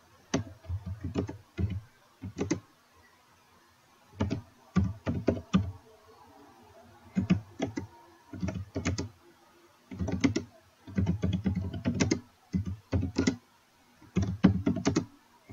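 Typing on a computer keyboard: short runs of quick keystrokes broken by brief pauses.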